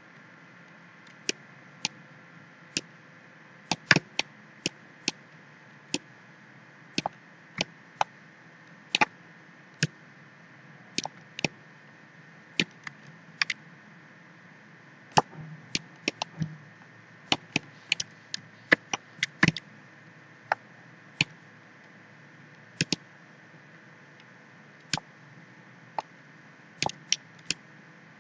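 Computer mouse clicking at irregular intervals, sometimes twice in quick succession, over a faint steady hiss.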